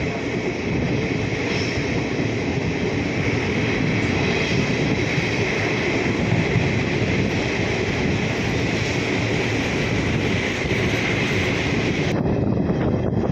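Passenger train running: a steady rumble and rushing noise, with a higher hiss on top that drops away abruptly near the end.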